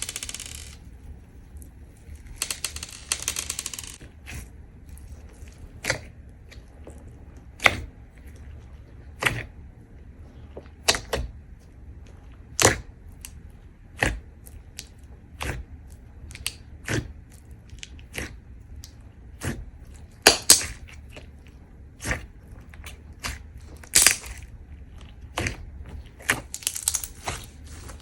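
Crunchy slime being pressed and squished by hand, giving sharp clicking pops about every second and a half, with a few short crackly stretches in between.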